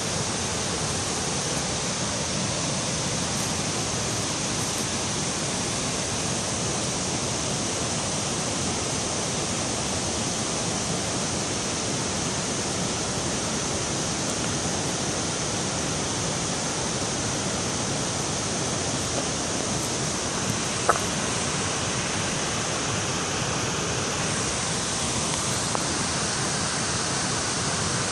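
A steady, even rushing noise at a constant level, with a single short click about twenty-one seconds in.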